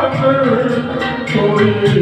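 Karaoke backing track of a Hindi song playing an instrumental passage: a held, sustained melody line that moves to a new note about a second and a half in, over light, steady percussion.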